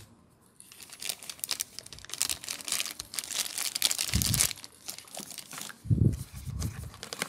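Plastic accessory bag crinkling and rustling as it is handled while a phone box is unpacked, with a few soft low thumps about four and six seconds in.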